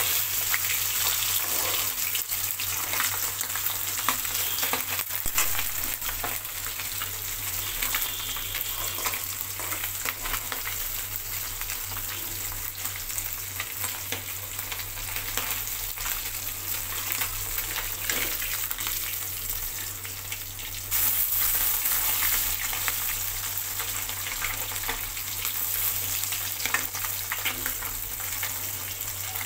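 Bata fish sizzling and crackling as they shallow-fry in hot soybean oil in a kadai. The sizzle steps up louder about two thirds of the way through.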